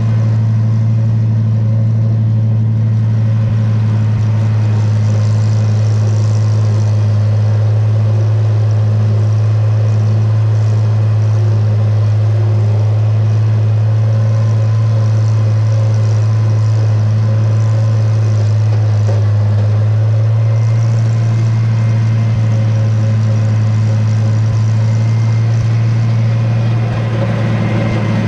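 Farmall 706 tractor engine running steadily, a constant low drone with no change in speed.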